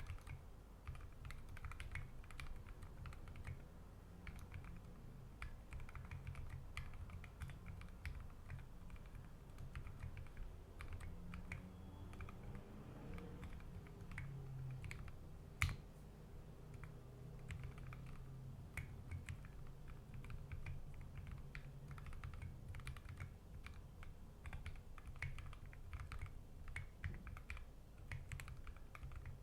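Continuous typing on a custom 60% mechanical keyboard with Gateron Ink Black v2 linear switches lubed with Krytox 205g0, an aluminium plate and SA-profile keycaps: a fast, steady stream of keystrokes, with one sharper, louder clack about halfway through.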